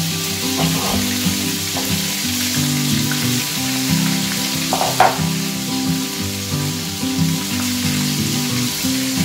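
Frog meat frying in hot oil in a wok: a steady sizzle, with one short clack about five seconds in, under background music. The meat is being fried to firm it before stir-frying.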